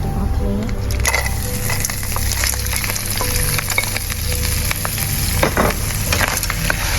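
Shellfish being stir-fried in hot oil with garlic: a steady sizzle, with the spatula scraping and knocking against the pan and the shells many times.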